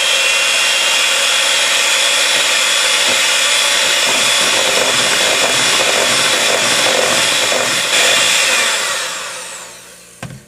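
Electric mixer running steadily with a high whine as it beats powdered sugar into creamed butter, then switched off and winding down in falling pitch near the end.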